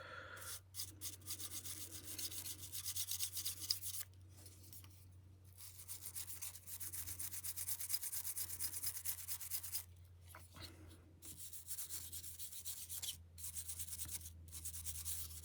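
Toothbrush scrubbing quickly back and forth over old adhesive on an iPhone 7's frame, wet with cleaner: a fast, scratchy brushing with a few short pauses.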